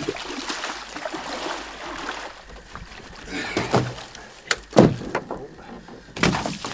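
A canoe being carried over a portage and handled at the water's edge: rustling and scuffing, then several hollow knocks and thumps of the hull, the loudest about five seconds in.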